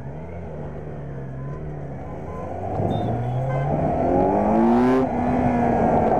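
Kawasaki Z900's 948 cc inline-four engine and exhaust under way. It runs steadily at low revs, then accelerates with a rising pitch from about three seconds in, dips briefly near five seconds, and holds steady at higher revs.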